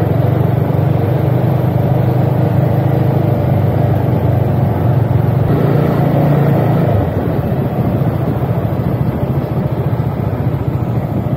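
Motorcycle engine running steadily on the road; the engine sound drops in level about seven seconds in.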